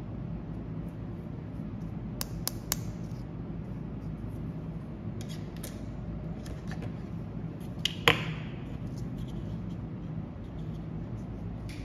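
Hard plastic toy doctor-set pieces clicking and tapping as they are handled on a wooden tabletop: three light clicks about two seconds in, scattered ticks around six seconds, and a sharper knock about eight seconds in. A steady low hum runs underneath.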